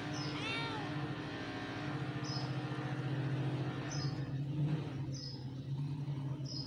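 A steady low droning hum, with a short high bird chirp about every second and a half and one quick falling call just after the start.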